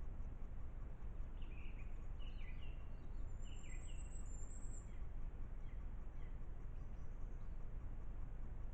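Forest ambience through a trail camera's microphone: a steady low rumble and hiss, with a few short bird chirps between about one and three seconds in and a thin high whistle around four seconds.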